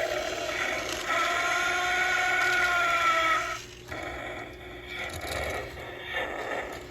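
Electronic walking dragon toy playing its recorded roar through a small speaker: a roar ends just after the start, and another long roar follows until about halfway. Then a quieter mechanical whirr from its walking mechanism, which the owner thinks labours under the toy's weight.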